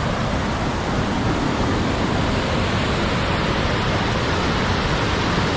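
Elk River Falls pouring, a steady loud rush of falling water.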